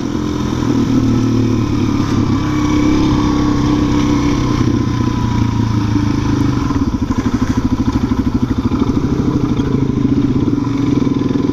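Suzuki DR-Z400 single-cylinder four-stroke engine running steadily under way, its note easing slightly lower over the first few seconds and then holding.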